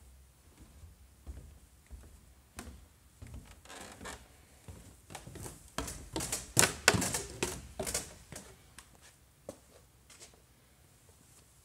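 Footsteps and rustling handling noise as someone walks with a phone indoors, with a cluster of louder scraping knocks from about six to eight seconds in.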